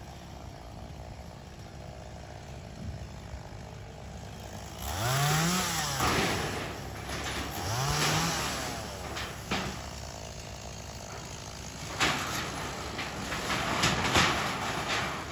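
Chainsaw running low, then revved up twice, its pitch rising and falling each time, as it cuts into a fallen tree's limbs. Several sharp knocks and cracks come near the end.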